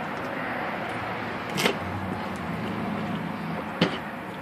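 Steady background hum with two sharp clicks, about one and a half and four seconds in, from a knife handled on the table while a catfish is cut.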